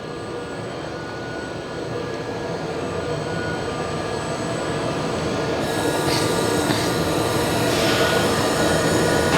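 Handheld laser welding system with wire feed running on a co-robot: a steady machine hum with several thin whining tones that grows louder. A hiss joins a little over halfway through as the weld begins.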